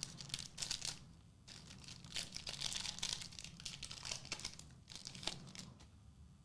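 Foil booster-pack wrapper crinkling and tearing open, a run of irregular crackles and sharp rustles that dies away after about five seconds.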